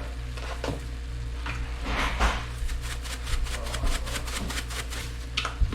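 Salt and pepper grinders being twisted over the pan: a rapid run of small clicks, with a sharp knock near the end.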